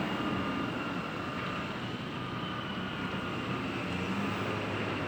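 Steady vehicle noise, a continuous rumble and hiss with a faint thin high whine running through it.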